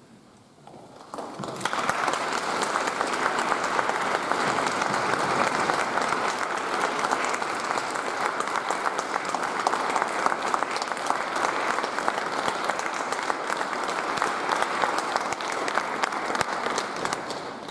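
Audience applauding: dense clapping starts about a second in, swells quickly, holds steady, and dies down near the end.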